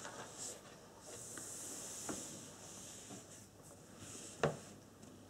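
Faint handling noises in a small room: a soft rustle and a few light clicks, the sharpest click about four and a half seconds in.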